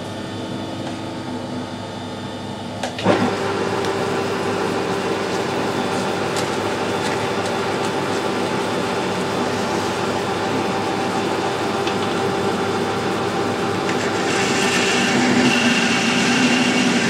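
Metal lathe switched on with a click about three seconds in, its spindle and gearing then running with a steady hum. Near the end a hiss and a high whine join in as the form tool cuts a radius into the steel CV joint shaft and throws off chips.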